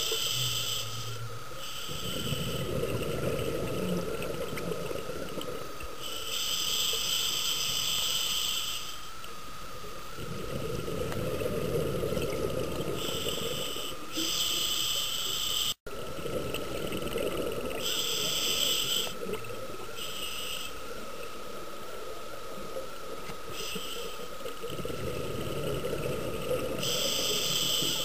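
Scuba diver breathing through a regulator: hissing inhalations of one to three seconds alternate with low, rumbling rushes of exhaled bubbles, under a steady thin whine. The sound cuts out for an instant about halfway through.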